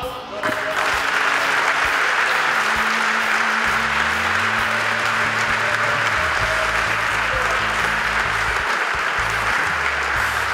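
Crowd of spectators applauding the match-winning point of a tennis match, the clapping swelling up about half a second in and carrying on steadily, with background music underneath.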